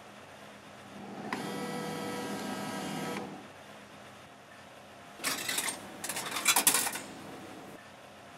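Vending machine running its dispensing motor with a steady whir for about two seconds, then a rattling clatter a couple of seconds later, lasting nearly two seconds, as the item comes down and out.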